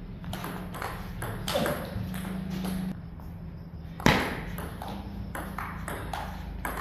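Table tennis rally: a plastic ball clicking sharply off the table and the rubber-faced bats in quick succession, with one hard forehand hit, the loudest click, about four seconds in.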